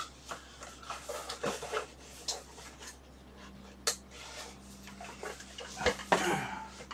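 Cardboard boxes and packaging being handled: scattered rustles and scrapes, a sharp tap about four seconds in, and a louder scuffle of cardboard near the end.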